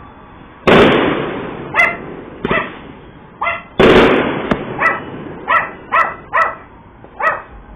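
Aerial fireworks exploding: two loud bangs, about a second in and about four seconds in, each fading away slowly. Between and after them a dog barks repeatedly in short single barks, about eight in all.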